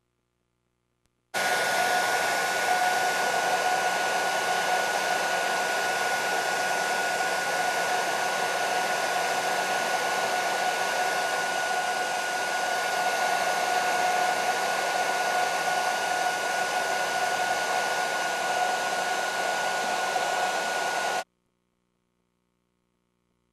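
Conair hand-held hair dryer switched on, running steadily with a high whine over its rushing air, then switched off suddenly near the end.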